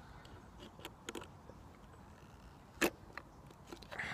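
A few faint clicks and taps of skateboard bearings and a wheel being handled, with one sharper click almost three seconds in, over a low steady rumble.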